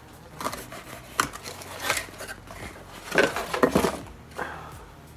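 Handling noise as a small electric fan motor is taken out of a cardboard box: a few sharp knocks and clicks, then a spell of rustling and knocking about three seconds in.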